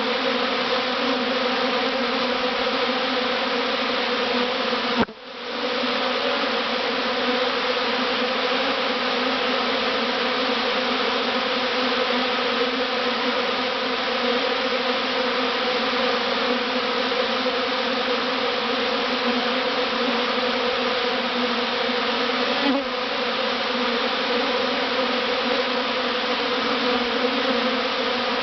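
Dense, steady buzzing of a large honeybee swarm heard close up at the hive box it is moving into, countless wingbeats merging into one hum. The sound cuts out very briefly about five seconds in.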